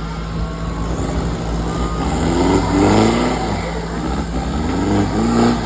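Off-road 4x4 engine running under a steady low rumble, revving up twice, about halfway through and again near the end.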